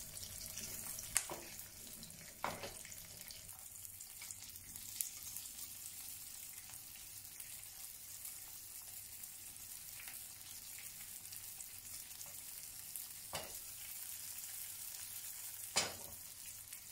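Egg-battered beancurd skin shallow-frying in hot oil in a non-stick pan: a faint, steady sizzle. A handful of sharp clicks come from chopsticks against the pan as the pieces are turned.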